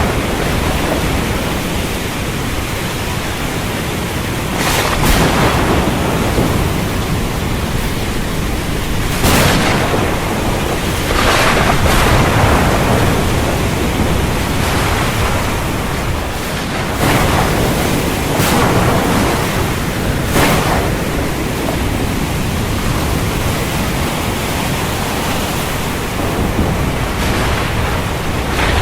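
Storm over the sea: a steady rush of wind and surf, with louder surges swelling and fading every few seconds.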